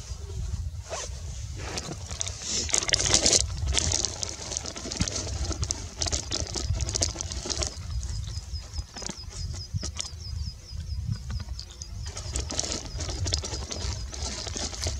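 Wind rumbling on the microphone with a rapid train of thin, high chirps repeating several times a second, and a louder burst of rustling noise about three seconds in.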